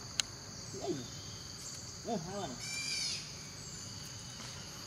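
Steady high-pitched insect chorus. Over it come a few short, hoot-like pitched calls, about one second in and again a second later, and a quick run of high chirps about three seconds in.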